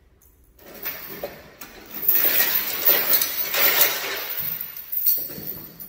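Steel flatbed tie-down chain being gathered from a pile and lifted, its links rattling and clinking against each other. It starts softly and grows loud from about two seconds in.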